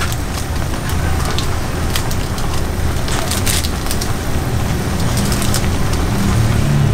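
Ramen broth boiling hard in a small aluminium pot, bubbling with scattered sharp pops and crackles over a steady low rumble.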